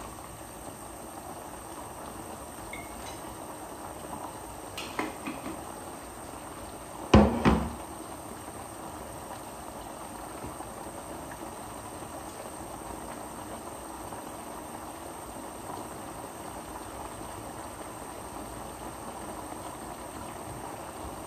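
Chicken asado sauce simmering steadily in a pot, with a few small clicks and two loud knocks of cookware about seven seconds in.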